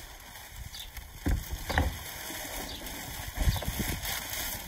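Crumpled packing paper rustling and crackling as plastic planter tiers are pulled out of a cardboard box, with a few louder bumps of the plastic pieces against each other and the box.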